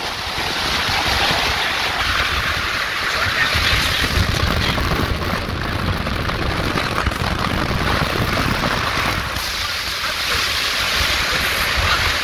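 Wind rushing over the microphone with the road rumble of a moving vehicle, heard from its open back.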